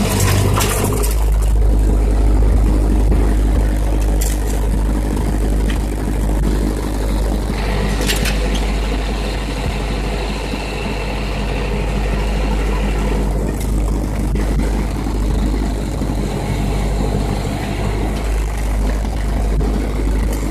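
1952 Ford tractor's four-cylinder engine running steadily while pulling a landscape rake through driveway gravel; the engine note changes about a second in. A few sharp metallic rattles from the rake and hitch come through over the engine.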